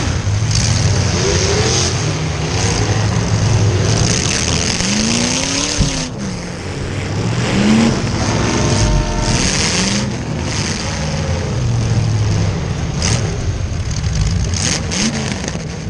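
V8 demolition derby car engines running and revving, their pitch repeatedly rising and falling over a steady drone.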